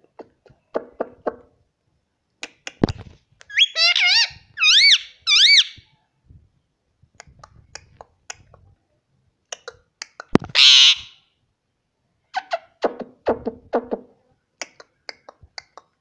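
Indian ringneck parakeet vocalising close up: scattered sharp clicks, a run of warbling whistles a few seconds in, a harsh squawk about halfway through, and short mumbled chatter near the end.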